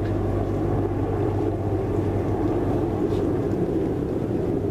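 Dry ice bubbling steadily in water in a tarp-lined pickup bed, a dense churning of bursting bubbles as the ice boils off into fog.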